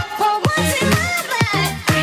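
Background music with a steady, quick beat and a melody that slides up and down in pitch.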